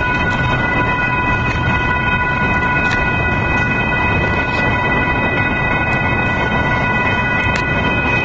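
Union Pacific double-stack container train rolling past close by, a steady rumble of wheels on rail with a few faint clicks. Over it sits a steady high-pitched whine.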